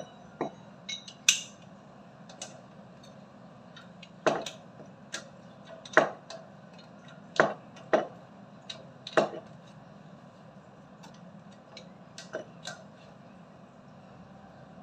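Metal wrench clinking and knocking against the water pump's pipe fittings while a connection is tightened: a string of sharp, separate clinks a second or so apart, loudest around the middle.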